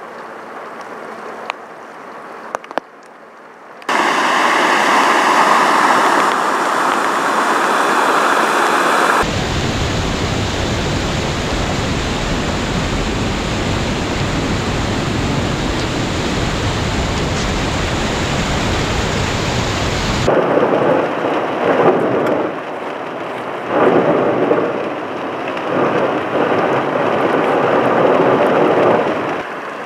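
Vehicles splashing through a flooded street, then a steady deep rush of muddy floodwater pouring over the broken edge of a washed-out road. Near the end comes rain and tyre spray heard from inside a moving car, rising and falling in surges every couple of seconds.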